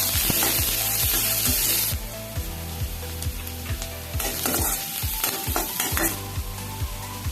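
Food sizzling as it fries in a pan, loud for about the first two seconds and then quieter, with stirring scrapes in the pan around the middle. Background music with a steady beat runs under it.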